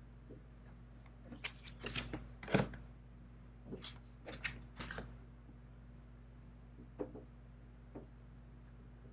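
Tarot cards being handled on a cloth-covered table: cards slide and tap as they are lifted and laid down, in two short flurries, then two light single taps near the end.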